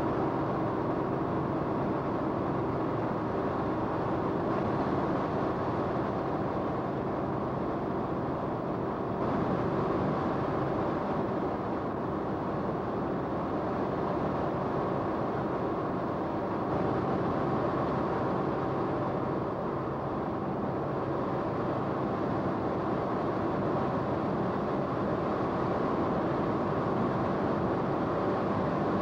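Steady drone of an aircraft's engine and rotor or propeller, heard from inside the cabin, with several constant tones over a broad rumble.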